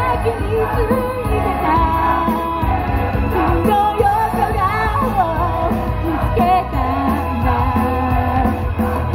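Live J-pop idol performance: a girls' group singing in unison into handheld microphones over amplified backing music with a steady low beat, heard through the PA.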